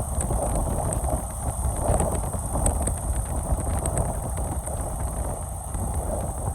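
Steady low rumble of wind and road noise from a moving vehicle, with no clear engine tone.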